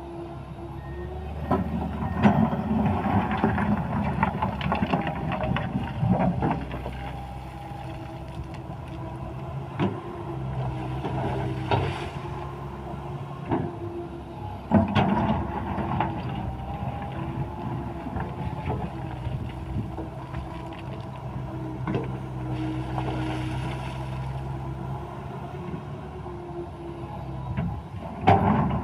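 Komatsu PC160 excavator working: its diesel engine runs steadily, getting louder for stretches as it takes load, with several sharp metallic clanks along the way.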